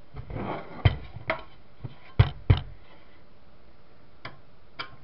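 Handling noise from a small electronics switcher box being turned over by hand: a brief rustle, then several sharp clicks and knocks in the first few seconds, with a couple of fainter ticks near the end.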